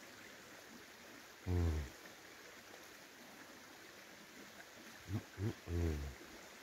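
A small river running steadily over stones, with a man's closed-mouth "mmm" hums of enjoyment while he chews a bacon and egg roll: one about a second and a half in, and three short ones near the end.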